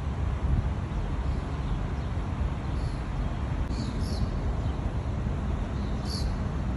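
Outdoor city ambience: a steady low rumble with a few short bird chirps, twice around the middle and once more near the end.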